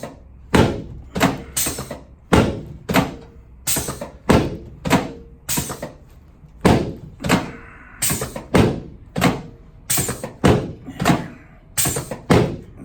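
Drop section of a chiropractic drop table clunking down again and again, about twenty sharp thumps roughly every half second, each with a short ring, as the chiropractor delivers thrust adjustments to the patient lying face down.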